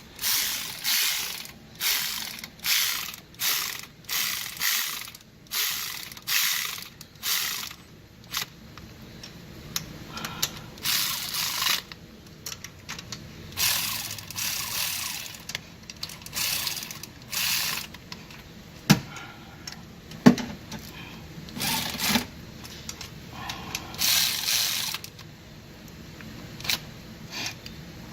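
Hand socket ratchet being worked in quick repeated strokes, its pawl rattling on each swing. The strokes become slower and sparser, with two sharp single clicks about two-thirds of the way through.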